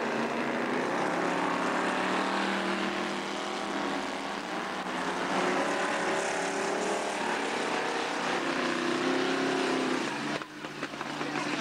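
Engines of several dirt-track speedway sedans running hard as they race, their pitch rising and falling as they rev. The sound drops away briefly about ten seconds in.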